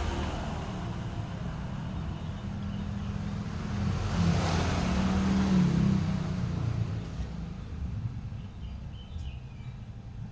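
A motor running with a steady low hum, swelling louder about four to six seconds in and then fading.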